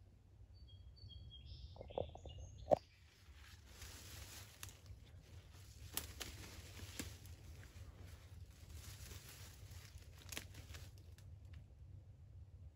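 A few short, high bird chirps, then two sharp knocks about two seconds in, the second the loudest. After that comes a soft rustling of leaves and brush with scattered small snaps, fading out near the end.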